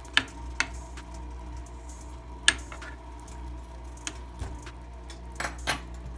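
Cookware clinking in a kitchen: three pairs of short, sharp knocks, the two knocks of each pair about half a second apart, over a steady low hum.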